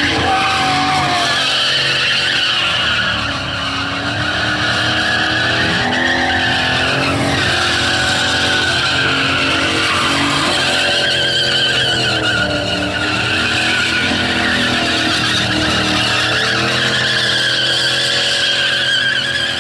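Holden VN Commodore SS V8 held at high revs in a burnout, the revs rising and falling, with the spinning rear tyres screeching against the pad.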